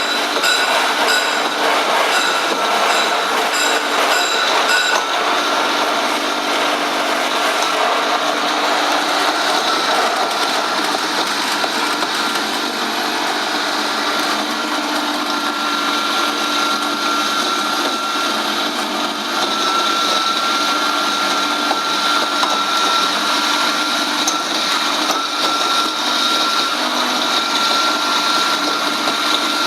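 Stainless steel electric bone grinder machine running steadily with a whine. For the first five seconds a regular ticking, about two a second, rides on top.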